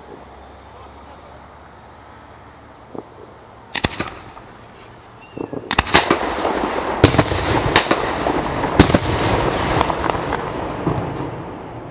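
Front-yard consumer fireworks going off loud: a single sharp bang about four seconds in, then a rapid string of bangs over continuous crackling for about five seconds, fading near the end.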